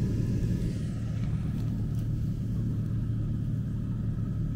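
Jeep driving at a steady pace, its engine and drivetrain making a continuous low rumble.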